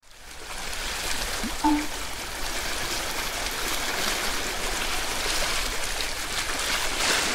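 Steady rushing hiss of sea water washing, fading in at the start. A short tonal blip sounds once about one and a half seconds in.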